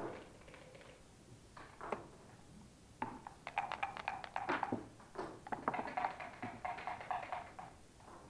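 Backgammon play at the board: quick runs of sharp clicks and rattles, as of dice shaken in a cup and thrown and checkers clacking onto the board. The clicks are thickest from about three seconds in to near the end, over a steady tone.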